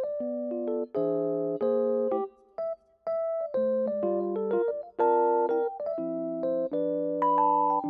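Background music: a gentle electric piano playing chords and a simple melody.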